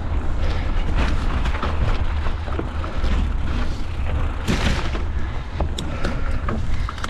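Wind buffeting the microphone in a steady low rumble while a mountain bike rattles over rough trail, with many short clicks and knocks; a louder rush comes about four and a half seconds in.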